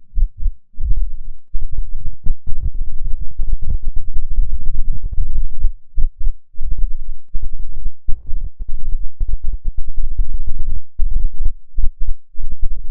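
Heavily distorted, bass-heavy electronic audio that stutters in rapid choppy pulses, typical of a logo jingle pushed through stacked sound effects.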